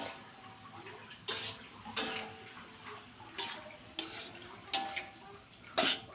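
Metal spatula knocking and scraping against an aluminium wok while stir-frying chopped greens. It makes about six sharp clanks at irregular gaps of roughly a second, and each rings briefly.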